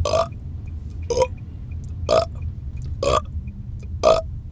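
A man burping in rapid fire: five short, loud burps about a second apart, over the steady low rumble of the car on the road.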